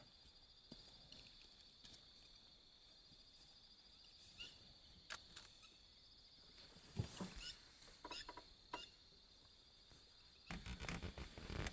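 Faint insect chorus, a steady high buzz, with a few scattered soft clicks and a burst of rustling near the end.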